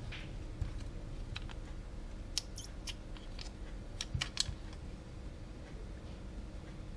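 Scattered light clicks and ticks, mostly bunched between about two and four and a half seconds in, from a circuit board and a pen-style battery soldering iron being handled while a capacitor is desoldered.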